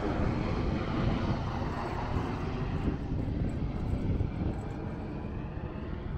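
Helicopter flying past overhead, a steady engine and rotor noise that slowly fades as it moves off into the distance.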